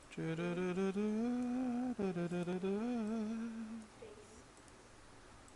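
A man's voice humming a short tune in two long, wavering phrases, stopping about four seconds in.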